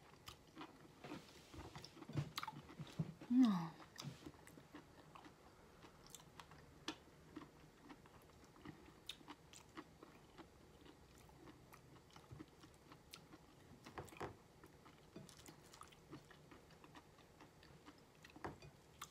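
Faint, scattered clicks and crackles of raw shrimp being shelled by hand and chewed. A short vocal sound comes about three and a half seconds in.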